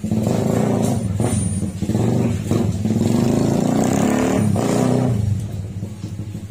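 A motor vehicle's engine running loud and close, its pitch rising and falling as it is revved, then easing off about five seconds in.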